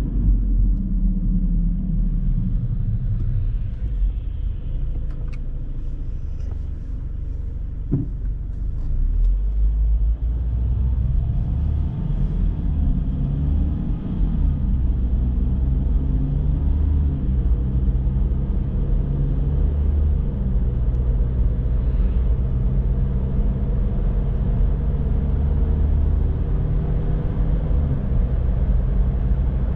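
Car driving on a road: a steady low rumble of engine and tyres, with the engine note shifting up and down as the speed changes. A single short knock sounds about eight seconds in.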